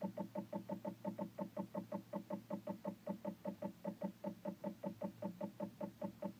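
Taig CNC mill's stepper motor jogging in short repeated steps, each a brief pitched buzz, about five a second. The drill bit is being lowered toward a slip of paper to set the tool height.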